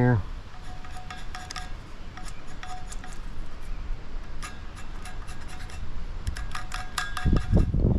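Light metallic clinks and ticks, some with a faint ringing tone, scattered irregularly and bunched in a few clusters: small metal contacts against a steel pipe while it is measured and marked.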